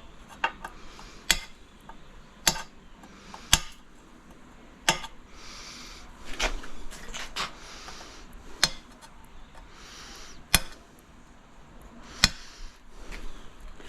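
Sharp knocks of a hand tool, used in place of a hammer, striking a ceramic tile: about ten blows spaced a second or more apart, with some scraping between them.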